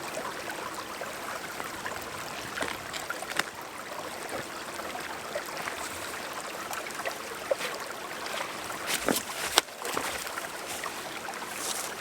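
Steady rush of flowing stream water, with a couple of sharp knocks about three-quarters of the way through.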